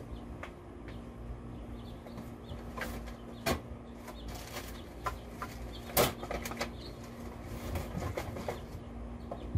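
Items being rummaged through in a box: rustling with scattered knocks and clinks, two sharper knocks about three and a half and six seconds in, the second the loudest. A low wind rumble on the microphone runs under it.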